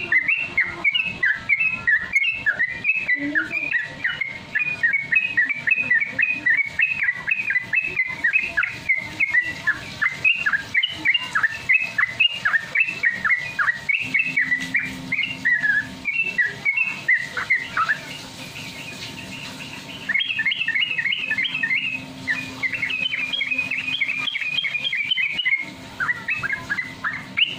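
Yellow-vented bulbul (trucuk) singing a fast, continuous run of short chirping notes, about three a second: the rapid 'ropel' song. The run breaks for about two seconds roughly two-thirds of the way through, and a faint steady hum sits underneath from the middle on.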